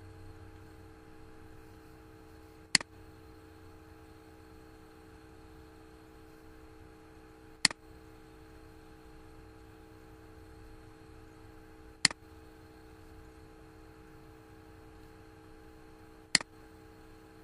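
Four sharp single computer mouse clicks, spaced several seconds apart, over a steady faint electrical hum.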